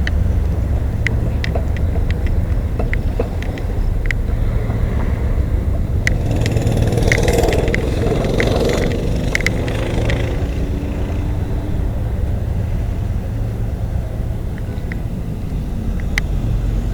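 Diesel locomotives idling with a steady low rumble. A louder rush of noise swells and fades in the middle.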